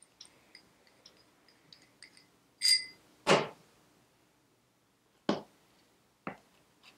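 Small steel wheel-hub parts (bearings, washers, spacer) and a hand tool being handled and set down on a workbench: a run of light metallic clinks, one brighter ringing clink nearly three seconds in, then a few sharp knocks.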